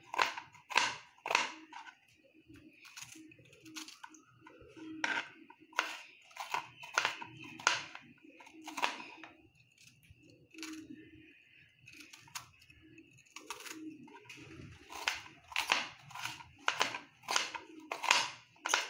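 A knife chopping bitter gourd into small pieces on a cutting board: irregular sharp taps as the blade cuts through and strikes the board, coming faster and louder in the last few seconds.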